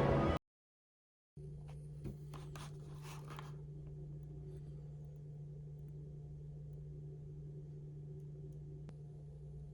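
A steady low electrical hum, with a few light clicks and rustles about two to three and a half seconds in, after a second of dead silence at the start.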